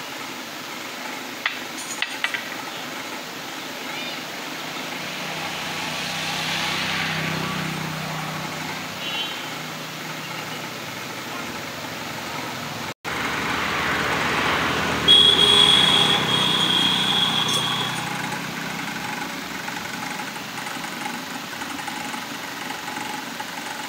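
Outdoor background noise with vehicles passing in the distance, swelling twice, and a high steady tone for about three seconds a little past the middle. A few faint clicks come early.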